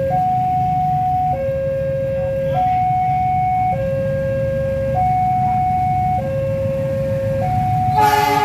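Level-crossing warning alarm sounding its two-tone signal, a higher and a lower tone alternating about every second. About 8 seconds in, the approaching diesel locomotive sounds its horn, a loud chord of several notes that becomes the loudest sound.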